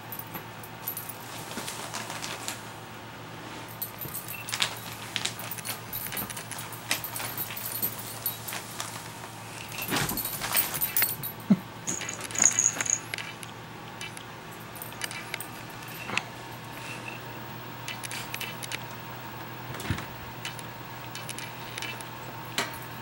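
Metal tags on a small dog's collar jingling irregularly as it moves about, with scattered light taps and clatter. The clatter is loudest about halfway through as a plastic bottle is knocked about, with one brief high squeak.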